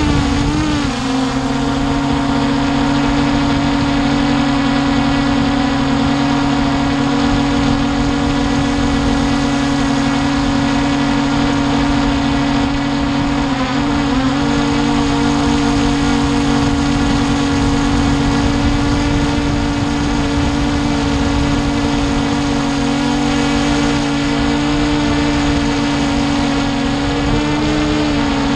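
Hubsan H501S quadcopter's brushless motors and propellers whining steadily in flight, heard from on board. The pitch wobbles briefly about a second in, again midway and near the end as the motor speeds change.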